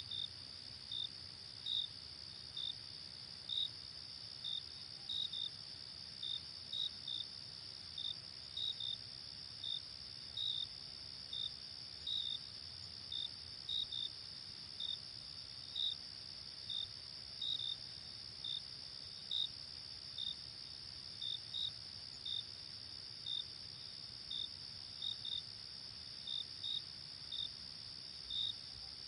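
Night insect chorus: a steady high-pitched trill with short chirps over it, irregular and about one or two a second, some in quick pairs.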